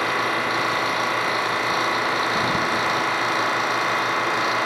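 End mill on a Sharp LMV-50 manual turret milling machine cutting 6061-T6 aluminium, squaring up the end of a block: a steady whine of the cut.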